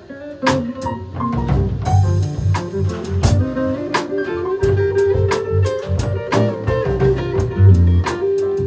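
Live band music: a Stratocaster-style electric guitar plays a melodic line over bass notes and drums with a steady beat.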